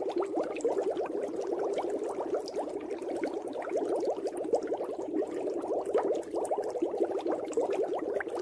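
Water bubbling steadily, a dense continuous patter of many small bubbles.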